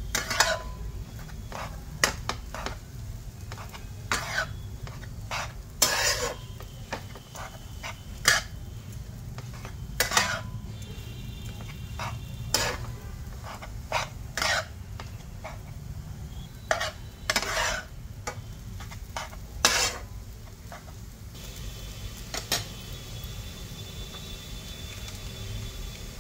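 Spatula scraping and knocking against a non-stick frying pan as semolina soaked in milk is stirred and roasted in ghee: irregular strokes every second or two over a steady low hum. The strokes stop near the end.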